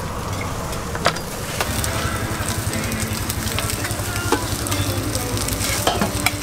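Burger patties sizzling on a flat-top steel griddle, a steady frying hiss broken by a few sharp metal clicks of the spatula on the plate.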